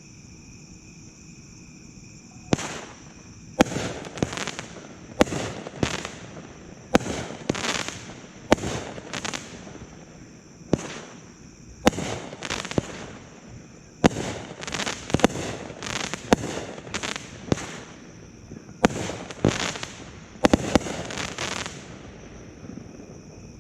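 Raging Bull Black Wolf 200-gram 12-shot consumer fireworks cake firing: about a dozen sharp reports a second or two apart, each followed by a short noisy tail, starting a couple of seconds in.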